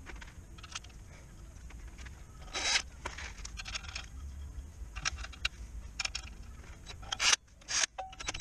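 Gloved hands and tools scraping and rubbing against the clutch pressure plate, then near the end a few short loud bursts of a 20V cordless drill-driver spinning as it starts on the pressure-plate bolts.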